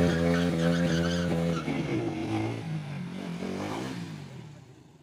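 Sport motorcycle engine held at steady high revs. About a second and a half in, the revs drop and the engine sound fades as the bike moves off.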